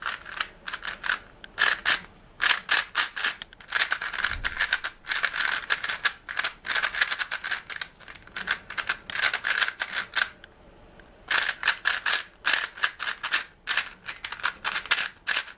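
A brand-new MoYu Weilong GTS 3x3 speedcube being turned fast for its first turns: rapid runs of plastic clicking and clacking from the layers, broken by brief pauses, the longest about eleven seconds in.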